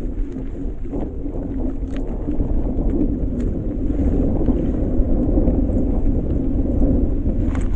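Steady low wind rumble on the microphone, slowly growing louder, with a few faint knocks.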